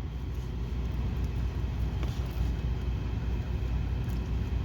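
Steady low background rumble, with a faint click about two seconds in.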